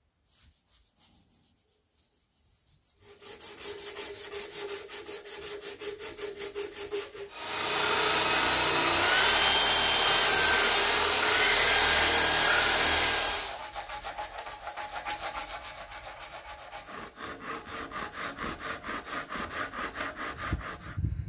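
Rhythmic hand-tool strokes on a wooden knife handle, about three a second. Then, for about six seconds, a power drill spinning an abrasive grinding stone against the wood, its whine rising twice. Then hand sanding strokes on the wood resume.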